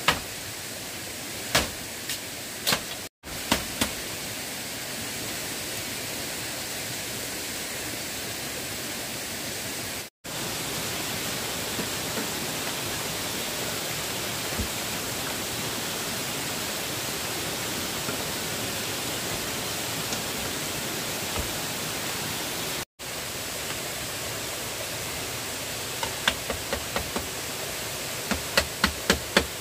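Tools knocking on bamboo over a steady rushing background noise: a few separate strikes in the first few seconds, then a quick run of knocks, about three or four a second, near the end. The sound cuts out briefly three times.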